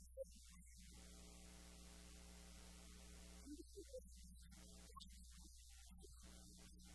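Steady low electrical mains hum at near-silent level, with a faint, indistinct snatch of a man's voice about halfway through.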